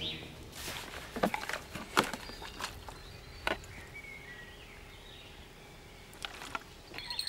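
A thin plastic water bottle crackling and clicking in a person's hands as it is opened and drunk from: a few short, sharp crackles spread through otherwise quiet outdoor background.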